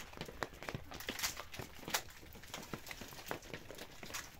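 Scattered, irregular light clicks and ticks, several a second, over a faint background hiss.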